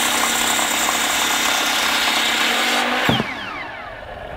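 Large circular beam saw cutting through a 6x6 cedar post, running steadily under load. About three seconds in the cut ends and the blade spins down with a falling whine.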